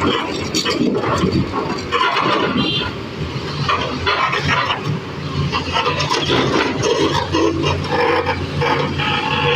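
Excavator's diesel engine running steadily, with irregular knocks and clatter over it.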